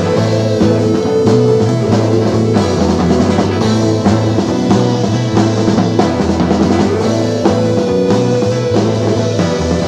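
Instrumental passage of a late-1960s psychedelic garage rock recording with no singing: a drum kit keeps a steady beat under a bass line and sustained mid-range instruments.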